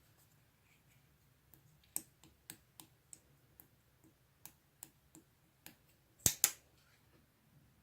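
Mixed slime being pressed and stretched by hand, making a run of small sharp clicks and pops, with two louder snaps close together near the end.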